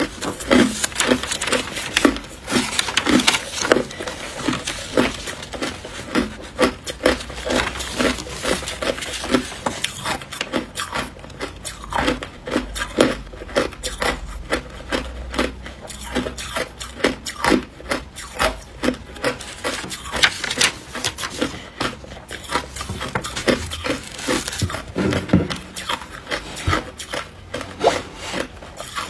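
Hard ice being crunched and chewed close to the microphone, a steady run of sharp crunches at about two a second.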